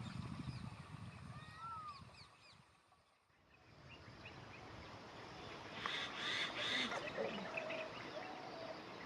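Wild birds calling: short gliding chirps over a low rumble for the first couple of seconds, then after a brief drop-out, a loud harsh three-note call about six seconds in, followed by a lower whistled note.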